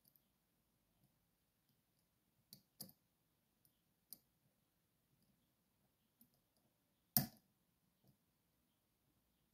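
Sparse, faint clicks of a lock pick working the pins of a Magnum Superior pin-tumbler cylinder under turning tension, with a louder click about seven seconds in.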